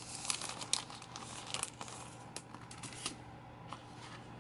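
Clear plastic packaging sleeve crinkling as hands handle and open it, a quick run of sharp crackles that dies down about three seconds in.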